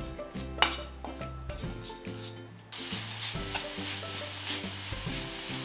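A metal spoon stirs and scrapes grated coconut and jaggery in a steel pan, with scattered clinks against the metal. About two and a half seconds in, a steady sizzle sets in suddenly as the mixture cooks over the flame. Background music plays throughout.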